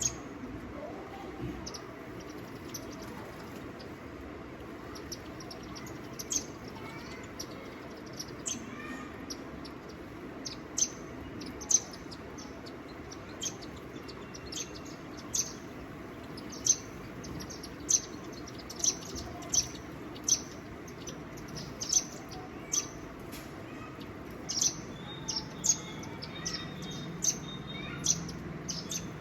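Birds chirping: short, sharp high-pitched calls repeated roughly once a second, growing more frequent after the first few seconds, over steady outdoor background noise.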